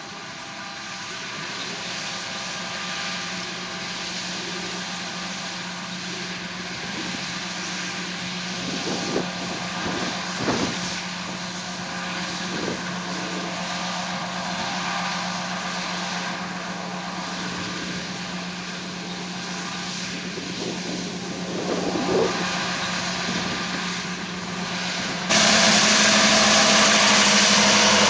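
Combine harvester at work, its engine running at a steady pitched hum with a few short knocks around the middle. Near the end the sound jumps suddenly to much louder and harsher.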